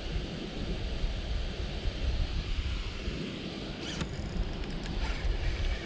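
Wind buffeting the microphone over a steady rush of moving water, with a couple of faint clicks about four seconds in.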